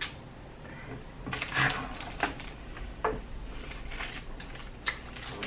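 Candy wrappers being handled and unwrapped: irregular crinkling with scattered sharp clicks, starting about a second in.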